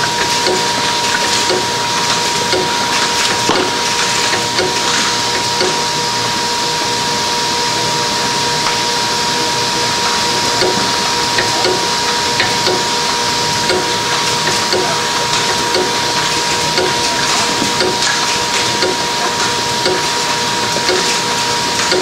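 Intermittent lid plugging machine running: a steady machine noise with a constant hum tone and a light regular tick about every two-thirds of a second, the rhythm of its repeating cycle.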